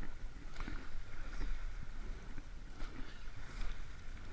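Rowing eight under way, heard from the cox's seat: the crew's oars working through the stroke, with a short knock or splash about once a second over a steady low rumble.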